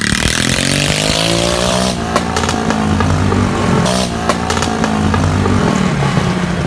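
Motorcycle engine revving up as the bike pulls away and accelerates, its pitch rising over the first two seconds and then holding, with a few sharp clicks about two and four seconds in.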